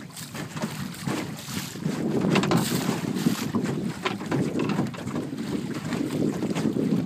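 Wind buffeting the microphone in gusts, rising and falling.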